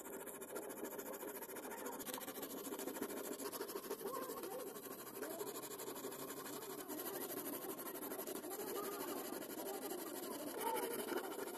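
A knife scraping and shaving wood from a wooden handle held in a bench vise, a continuous run of scraping over a steady hiss.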